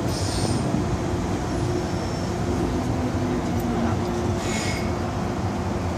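Inside a moving MTR M-Train carriage: the steady rumble of the train running on the rails, with a constant motor hum. Two short high-pitched squeals, one just after the start and one about four and a half seconds in.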